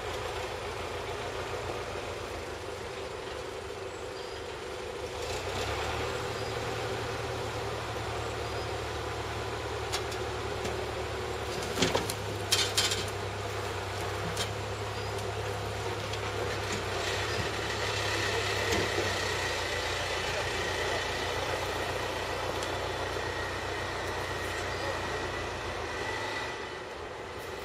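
Truck engine idling steadily, with a few sharp knocks about twelve seconds in as log sections are loaded into the steel dump body. The engine hum drops away near the end.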